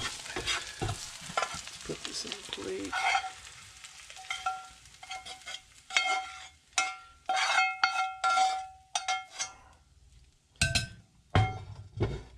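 Hash potatoes sizzling in a cast iron skillet while a metal spatula stirs and scrapes them. After about four seconds comes a run of ringing clinks and scrapes as the potatoes are scraped out of the skillet onto a ceramic plate. A few heavy knocks follow near the end.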